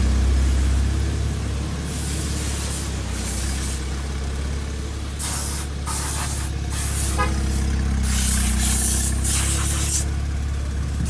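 Car-wash spray hissing in short bursts, a few at about two to three seconds in and then a run of them from about five to ten seconds in, over a steady low rumble.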